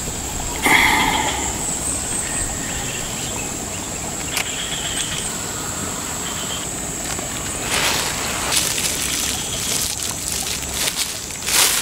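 Outdoor ambience by a pond: a steady background hiss with a thin, high-pitched whine running under it. A few brief rustles or knocks come through, one early on that has a short pitched part.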